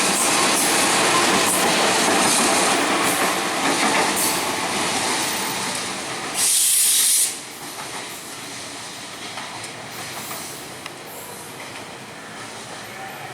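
A train passing through a station, with wheels and cars rattling loudly for about six seconds. A short, sharp hiss comes a little after six seconds, and then the noise drops off as the train moves away.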